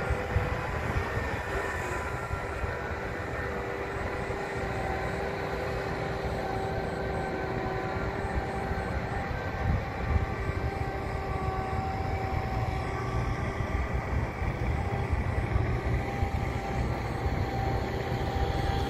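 Farm machinery diesel engine running steadily under load, a low rumble with a steady whine over it.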